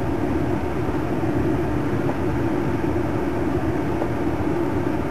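Steady in-cabin drive noise of an Audi Q5 moving slowly over a dirt track: an even rumble of engine and tyres.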